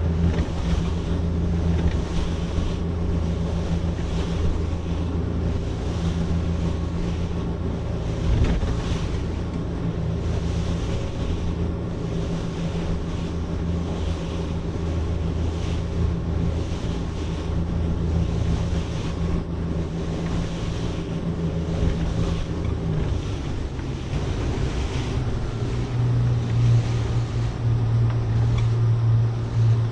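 21 ft Cobia center-console boat running under way on its outboard engine, a steady drone over the rush of the hull through the water and wind on the microphone. The engine note shifts lower about two-thirds of the way through.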